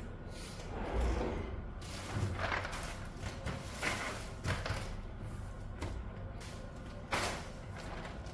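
Irregular, unhurried clacks and thuds of keys on a mechanical keyboard fitted with PBT dye-sublimated keycaps, with a few heavier knocks standing out.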